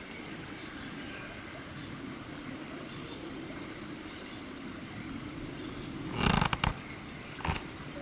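Steady low background noise. About six seconds in, a quick cluster of loud knocks comes through, and a single knock follows about a second later.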